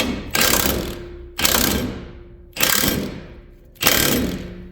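Impact wrench driving a ball-joint press screw in four short bursts, about one a second, each fading out after the trigger lets go, pressing the new ball joint home into the control arm.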